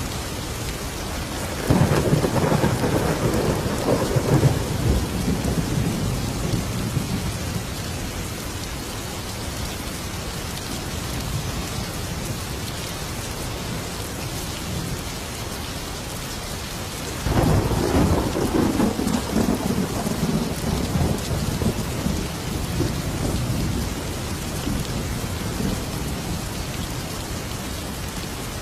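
Thunderstorm: steady heavy rain with two rolls of thunder, one about two seconds in and another just past the middle, each starting suddenly and rumbling away over several seconds.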